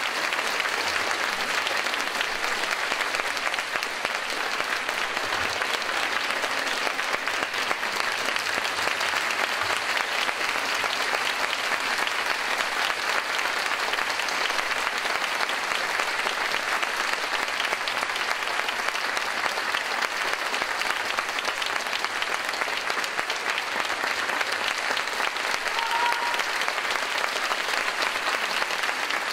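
Theatre audience applauding steadily, a dense even clapping that continues throughout.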